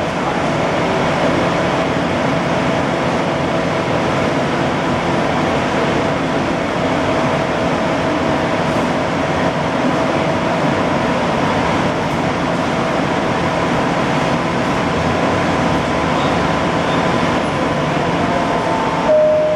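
Steady hum of a stationary SMRT APM 100 light-rail car's air conditioning and onboard equipment as it dwells at a station with doors open, carrying a faint steady tone. Near the end, a short two-note tone falls in pitch.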